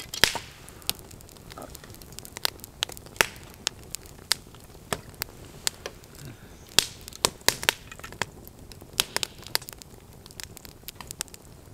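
Wood campfire crackling, with irregular sharp pops a few times a second over a low steady hiss.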